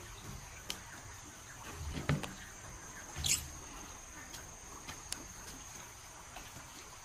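Ribbed plastic suction hose being coiled by hand: two dull knocks with a scrape about two and three seconds in, and a few light clicks, over a steady high-pitched insect buzz.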